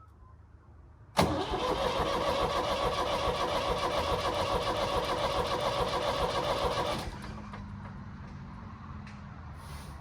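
Old backhoe's engine being cranked over by its starter. It starts suddenly about a second in, keeps a fast, even pulsing for about six seconds, then cuts back to a quieter, lower steady hum.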